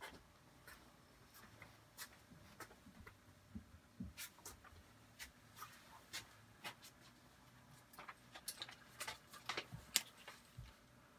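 Faint, irregular light clicks and ticks over quiet room tone, coming thicker near the end.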